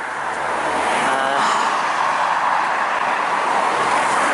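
A car passing by on the road, loud, its tyre and engine noise swelling over about the first second, holding, then slowly fading near the end.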